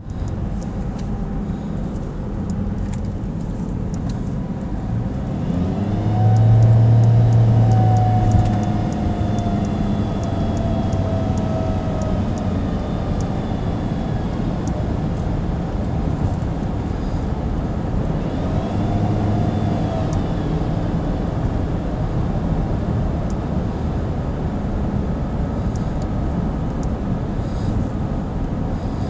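Nissan Rogue running with steady engine and road noise, and an odd low hum that swells for about two seconds, about six seconds in and more weakly near nineteen seconds. A fainter whine slides in pitch along with each hum.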